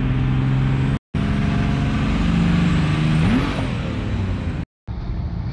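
Mercedes OM606 inline-six turbo-diesel engine of a swapped Toyota Tacoma, heard from inside the cab while driving, in short clips with two brief cuts. The engine note rises briefly about three seconds in, and road and wind noise take over in the last clip.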